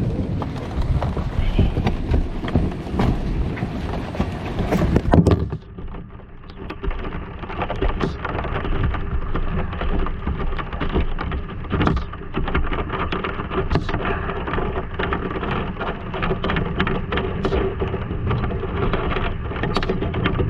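Light rain pattering, with scattered small taps and ticks. For the first five seconds or so a heavy low rumble lies over it and cuts off suddenly.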